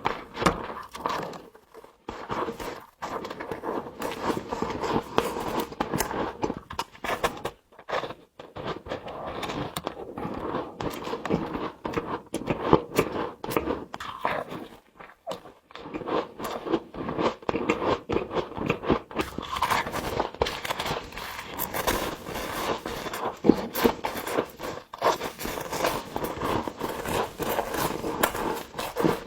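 Frost being bitten and chewed close to the microphone: a dense run of crisp crunches and crackles, broken by a few short pauses.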